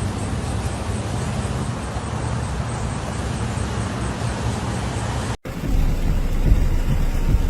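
A car driving in rain, a steady engine and road rumble, which cuts off abruptly about five seconds in. Then heavy rain with a deep, low rumble of thunder.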